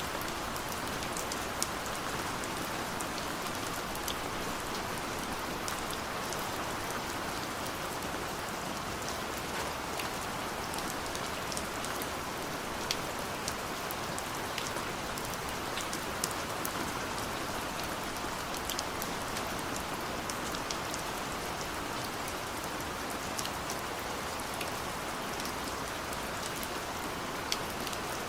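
Steady rain falling, with a dense hiss and many separate drops ticking sharply on a surface.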